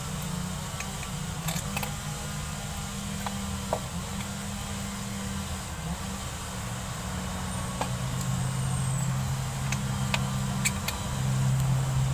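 A vehicle engine running at idle with a steady low hum that grows somewhat louder in the second half, over scattered light metallic clicks of bolts being handled and set against the EGR valve flange.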